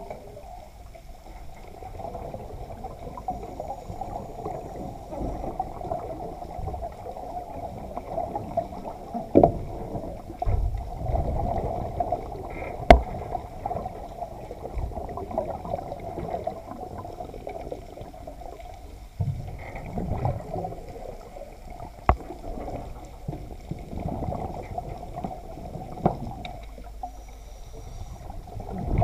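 Muffled underwater sound picked up by a camera inside a submerged dive cage: a steady wash of moving water, with a few sharp knocks, the loudest about 13 seconds in and another near 22 seconds.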